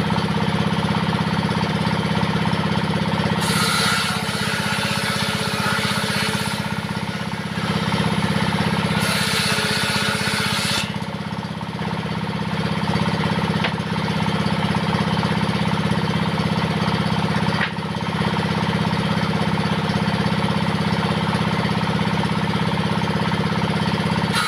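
Diesel engine running steadily, driving a homemade table saw. Twice, from about three and a half seconds and again around nine seconds, a higher rasping noise rises over the engine for a few seconds as the blade cuts through wood.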